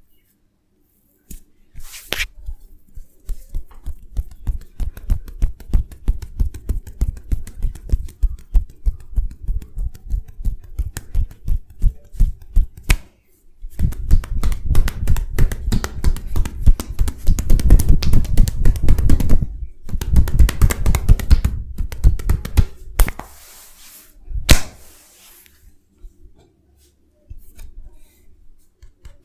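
Percussive massage: quick, rhythmic tapping strikes on the body, several a second. They grow denser and louder about halfway through, and one sharp, loud strike comes near the end.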